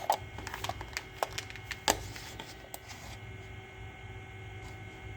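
A few sharp clicks and knocks of hands handling the computer's controls and plastic case, the loudest about two seconds in, over a steady low electrical hum from the running machine.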